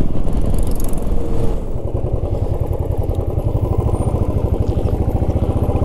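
Motorcycle engine running steadily while the bike rides along the highway, with an even low pulsing throb.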